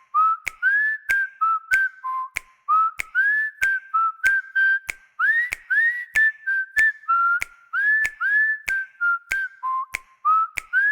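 Tablet ringtone playing a whistled melody of short notes, many sliding up in pitch, over a steady clicking beat of about two to three clicks a second.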